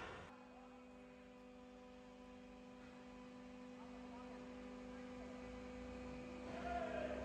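Hydraulic pipe-crushing press running with a steady electric hum that grows gradually louder. A sharp crack of breaking ductile iron pipe fades just after the start, and a short whine and the start of another crack come right at the end.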